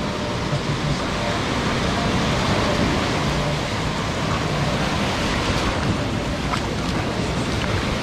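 Small Caribbean surf breaking and washing up the sand in a steady rush, with wind buffeting the microphone.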